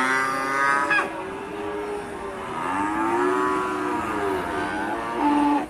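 Cattle mooing: a call about a second long at the start, then a long drawn-out moo that rises and falls in pitch for about four seconds and cuts off near the end.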